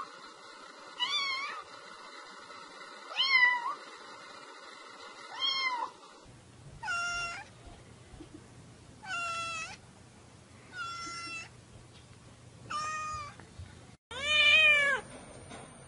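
Black domestic cat meowing again and again, about eight meows roughly two seconds apart, the last one the loudest.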